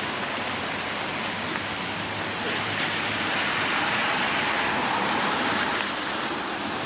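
Steady rain falling, an even hiss that grows a little louder for a few seconds in the middle.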